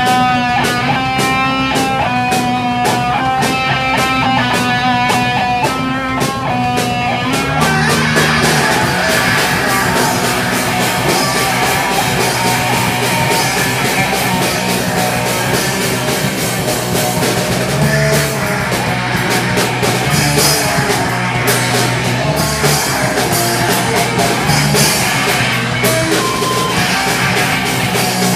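Live punk/hardcore band playing loud: a repeated picked guitar figure over drums, then about seven seconds in the full band comes in with dense distorted guitars and pounding drums.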